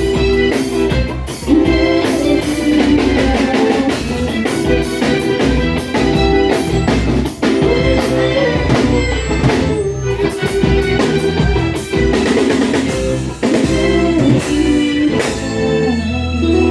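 Live band playing an instrumental passage, with drum kit and guitar over a steady beat.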